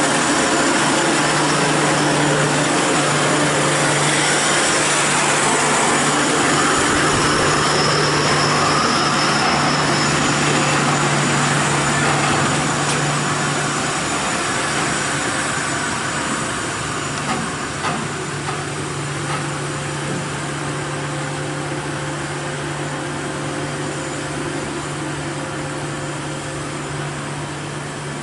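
Heavy diesel truck-trailer's engine pulling under load up a steep grade, a steady drone with a constant low hum. It grows somewhat quieter about halfway through.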